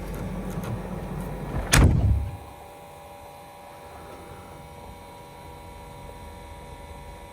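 A low rumble with a single loud thump about two seconds in, after which the rumble stops and only a faint steady hum with a few thin tones remains.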